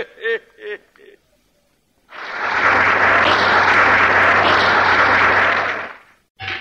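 Audience applause lasting about four seconds, fading in and then dying away, with a faint low hum under it, marking the end of a comic sketch.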